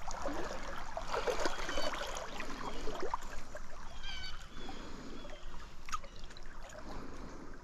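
Small trout stream trickling and gurgling steadily, with a sharp click about six seconds in.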